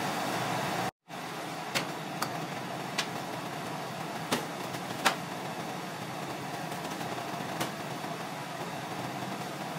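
Steady mechanical hum of a laundry room, broken off for an instant about a second in, with scattered sharp clicks and taps of plastic detergent bottles and caps being handled on top of a front-loading washer, the loudest about five seconds in.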